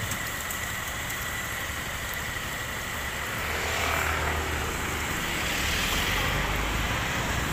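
Road traffic: a motor vehicle passes close by, its low engine rumble swelling about halfway through and easing off near the end, over a steady background hiss.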